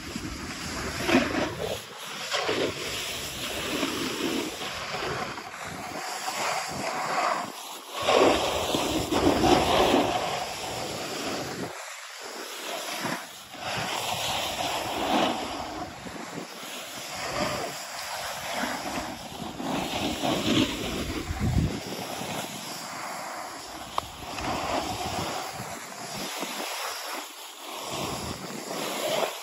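Snowboard sliding and carving down a packed snow slope: a hissing scrape that swells and fades with each turn, mixed with wind buffeting the microphone.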